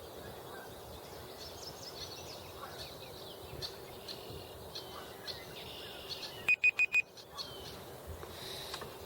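Field recording of birds: small songbirds chirp throughout, and about two-thirds of the way in a blue jay gives four loud, quick calls in a row.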